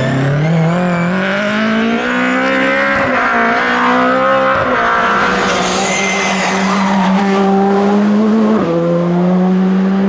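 Rally cars at full throttle on a tarmac stage: first a BMW E30 rally car's engine revs climbing hard through the gears with quick shifts, then a Skoda Fabia R5's engine held high with a gear change near the end. Tyre squeal around six seconds in.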